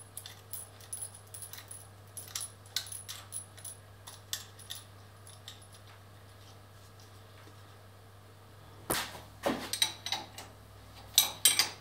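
Light metallic clicks and clinks of hand work on a milling machine's spindle head, over a faint steady hum. About nine seconds in come several louder, sharper metal clanks as a spanner is brought to the bolt.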